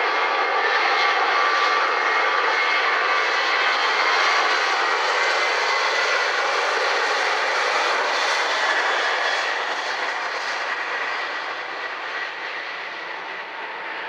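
Airliner engines running loud with a faint high whine over the rush, fading from about nine seconds in as the plane moves away.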